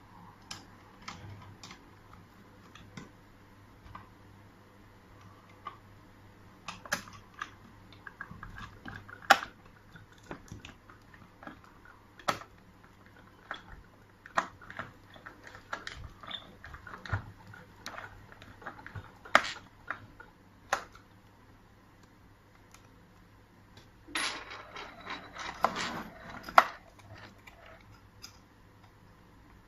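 Screws and metal lock hardware being handled and fitted by hand: scattered clicks, taps and light metallic clatter, with a busier run of rattling near the end.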